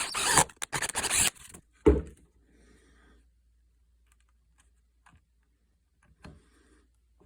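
A drill boring a hole in wood: about a second and a half of rough, crackly cutting noise in a few quick pulses, then a single knock about two seconds in. After that, only a few faint clicks.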